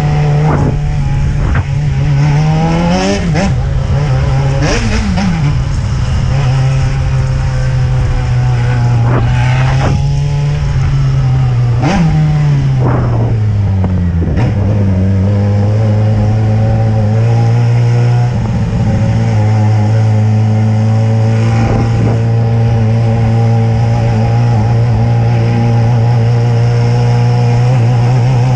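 Yamaha XJ6N's 600 cc inline-four engine running while the bike is ridden. Its pitch rises and falls several times in the first half as the throttle is opened and closed, then drops and holds a steady note for the second half. Wind rumbles on the microphone, easing later on.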